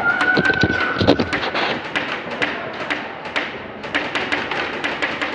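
Airsoft guns firing in rapid bursts: fast trains of sharp cracks, several shots a second, with a heavier thump about a second in.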